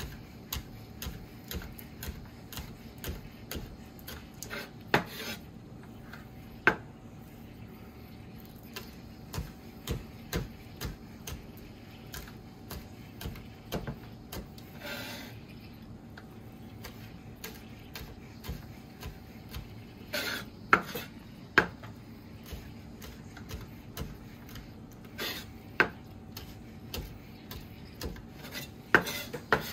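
Knife cutting scallions on a cutting board: scattered knocks of the blade on the board at an irregular pace, with a faint steady hum underneath.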